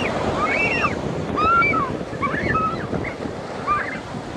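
Surf breaking and washing up the sand, with children's high-pitched squeals and shrieks over it again and again, thinning out near the end.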